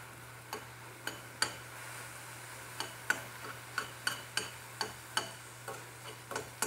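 A metal spoon stirring diced onions in a stainless steel frying pan: irregular clinks and scrapes of the spoon against the pan, two or three a second and coming faster in the second half, over a faint sizzle of the onions frying.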